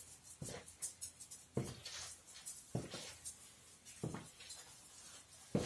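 Footsteps of leather boots on a tiled floor: about five quiet, separate heel strikes, a little over a second apart.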